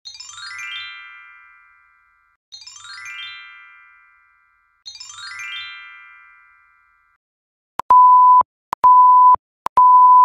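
Three identical chime jingles, about two and a half seconds apart, each a quick falling cascade of bright bell-like notes that rings out. About eight seconds in, these give way to a steady high electronic beep repeating about once a second, a heart-monitor beep sound effect.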